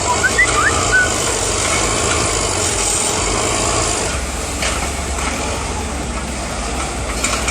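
Heavy machine's engine running steadily with mechanical clatter, and a few short high squeals in the first second, like metal screeching.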